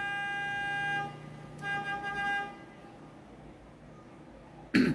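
A vehicle horn sounding twice: a long steady blast that stops about a second in, then a shorter blast of about a second. Near the end a man's voice gives one brief sound.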